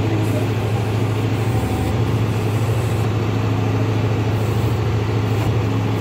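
John Deere 5310 tractor's three-cylinder diesel engine running steadily, driving the hydraulics of the Bull backhoe attachment as the boom and bucket are worked.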